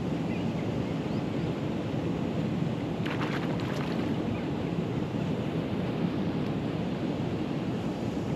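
Steady wind buffeting the microphone outdoors: a continuous low rumbling noise with no distinct events.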